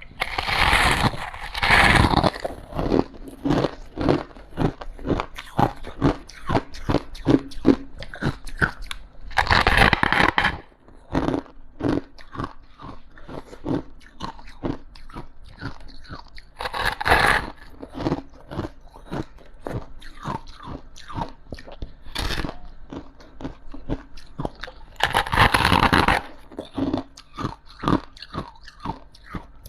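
Close-miked bites into frost, each a loud crunch, four times about eight seconds apart, with quick crunchy chewing of the frost in between.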